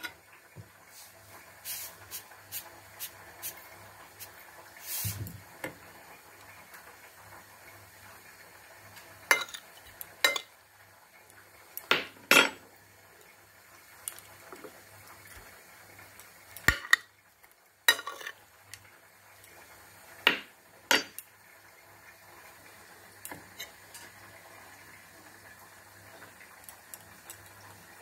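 A metal spoon clinking and tapping against a ceramic plate, about a dozen sharp clinks spread irregularly, some in quick pairs.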